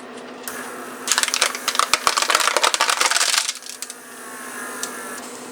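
1991 Mercedes 500SL central-locking vacuum/pressure pump running on the bench: a loud, dense buzzing rattle for about three seconds, then a fainter steady whine until shortly before the end as it keeps building lock vacuum or unlock pressure.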